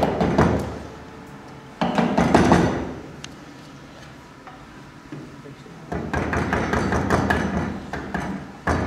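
A wood chisel paring and scraping out a lock mortice in timber, in three bursts of quick rasping strokes: at the start, about two seconds in, and a longer run from about six seconds.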